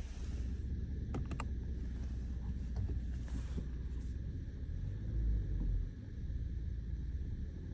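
Low, steady engine and cabin rumble of a 2024 Toyota Camry XSE's 3.5-litre V6 running at low load, heard from inside the car. There are a few light clicks a little over a second in and a brief louder low rumble around five seconds in.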